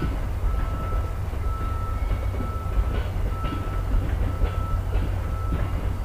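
Commuter train cars rolling past with a steady low rumble and scattered wheel clicks over rail joints, and a thin high tone that comes and goes.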